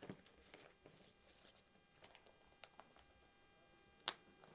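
Near silence with faint crinkles of a plastic-bagged suit being handled on a glass counter, and one sharp tap about four seconds in.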